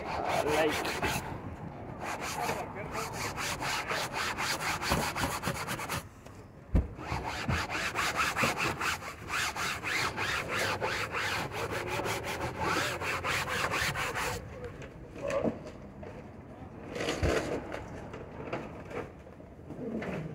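Rapid back-and-forth scrubbing of a car's fabric headliner by hand with a soapy scrubber, in quick even strokes. There is a brief pause about six seconds in, and the strokes thin out near the end.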